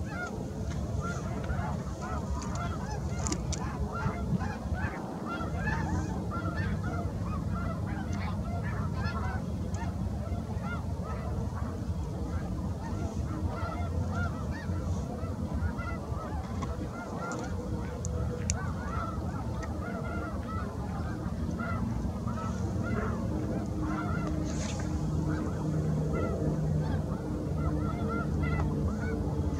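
A flock of birds calling continuously, many short calls overlapping in a steady chatter, over a low steady hum that grows stronger in the second half.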